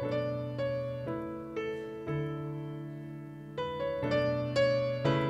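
Piano sound from a stage keyboard played alone: slow broken chords rising over held bass notes, each note struck and fading.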